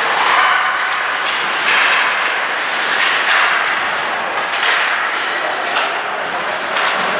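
Ice hockey play on the rink: a steady scraping hiss of skates on the ice with irregular sharp knocks of sticks and puck, about one every second or so.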